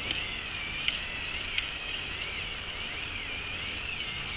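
Lego Technic halftrack model's electric motors and plastic gearing whining, the pitch wavering up and down as it drives, with three sharp clicks in the first two seconds.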